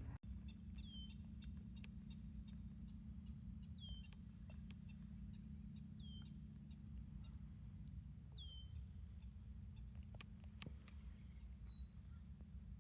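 A bird repeating a short call that drops in pitch, about every two to three seconds, over a steady high-pitched insect drone.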